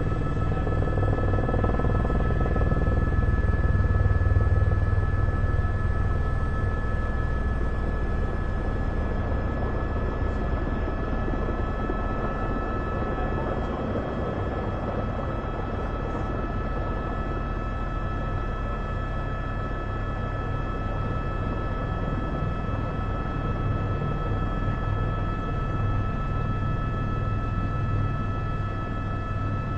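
Background music: a slow ambient drone of long held tones over a low rumble.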